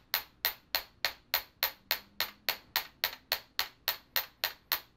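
A 3-ounce chasing hammer's planishing face striking 16-gauge copper-coloured wire on a steel bench block in light, even taps, about three to four a second, each with a short metallic ring. The wire is being planished: flattened and spread to draw out and smooth its curve.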